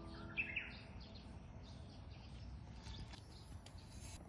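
Wild birds chirping, with two short, louder calls about half a second in, over a low rumble of outdoor ambience.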